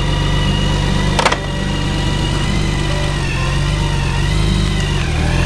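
BMW touring motorcycle's engine idling steadily, with one sharp click about a second in.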